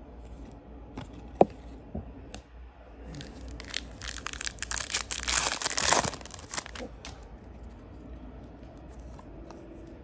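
A foil trading-card pack wrapper being torn open and crinkled by hand, a dense crackle loudest about four to six seconds in. A single sharp click comes first, about a second and a half in.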